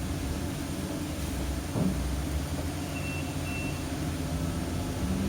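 City bus running, heard from inside the cabin: a steady low engine and road rumble, with a knock a little under two seconds in and two short high beeps about three seconds in.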